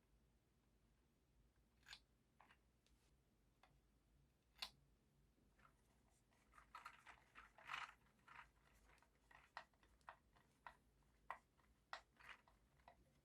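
Faint, scattered clicks and taps from a vintage mechanical keyboard being reassembled by hand, coming more often from about halfway on.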